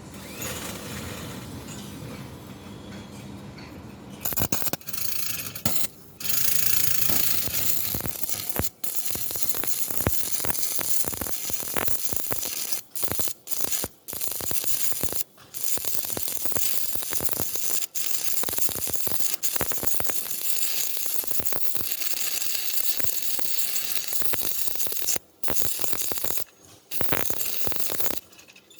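Stick (arc) welding: the electrode's arc crackles and sputters steadily, starting about four seconds in. The arc cuts out briefly several times before picking up again.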